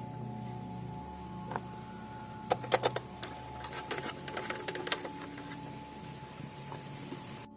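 Metal spoon scraping and clinking against a metal pot and its perforated steamer tray while boiled watercress is scooped out: a cluster of sharp clinks about two and a half seconds in, then lighter taps and scrapes for a couple of seconds more.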